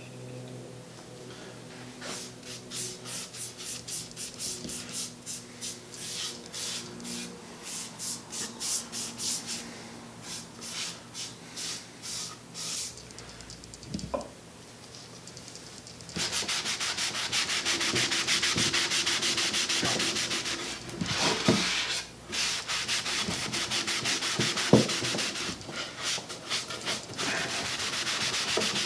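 A cloth rag rubbing oil stain into a bare, sanded oak chair seat. It starts as short wiping strokes, about two to three a second. About halfway through it becomes louder, steadier scrubbing.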